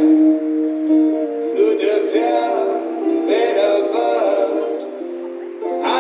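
Street music: held chords change about every few seconds, with a wavering melody line over them.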